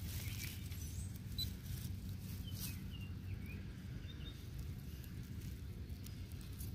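Faint rustling and crumbling of soil and grass roots as a dug plug of dirt is broken apart by hand, over a low steady rumble.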